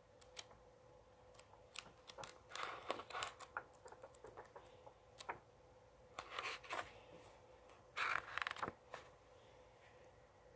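Pages of a paperback graphic novel being turned by hand: soft paper rustles and flicks, with several louder page turns.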